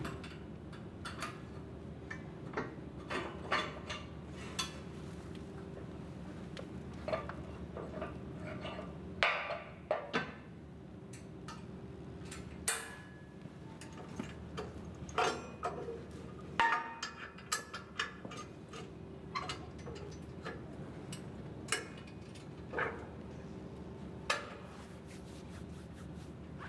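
Irregular metal clinks, clanks and knocks from the steel jack stands and pins on a planter hitch being handled and moved, with a few louder clanks. A steady low hum runs underneath.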